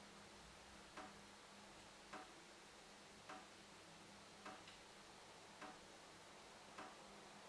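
Dripping tap: single water drops falling at a steady rate, about one every second or so, each a soft plink with a short ring. Six drips in all, faint.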